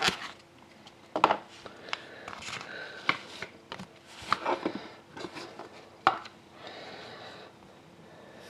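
Trading cards being handled as a freshly opened pack is gone through: scattered clicks and taps, with brief rubbing and sliding noises.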